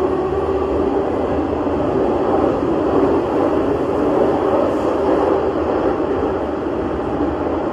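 Milan Metro train running at a steady speed through a tunnel, heard from inside the car: continuous rail and wheel rumble with the steady hum of its traction motors.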